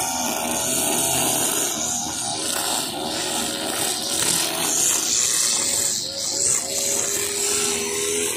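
Husqvarna 542RBS backpack brushcutter's two-stroke engine running, spinning a head of 2.2 mm nylon trimmer line through grass, its pitch rising and dipping again and again as the line takes load, then holding steadier near the end.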